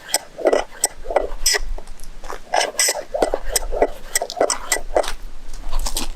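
Irregular clinks and knocks of utensils against dishes or cookware, a rapid scatter of short sharp strokes.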